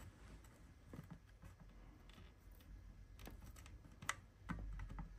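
Faint small clicks and taps from a soldering iron and fingers working a wire onto a circuit board terminal, the sharpest about four seconds in, over a low room hum; otherwise near silence.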